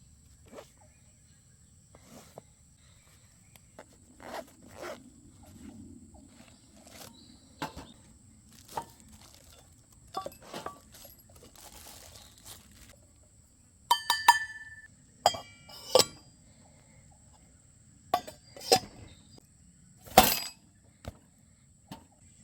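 Camping mug being handled: scattered knocks and clinks, a few of them ringing briefly with a clear tone, the loudest near the end.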